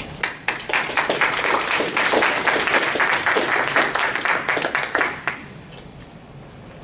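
Small audience applauding, a dense run of hand claps that starts just after the opening and dies away about five seconds in.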